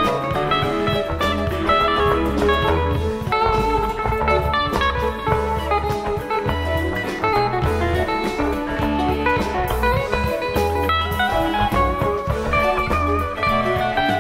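Live rock band playing an instrumental jam, a lead electric guitar soloing over bass and drums, recorded in a large arena.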